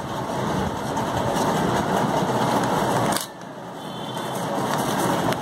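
Rustling and crinkling of a paper strip handled close to the microphone. It grows louder for about three seconds, drops off sharply with a click, then builds again.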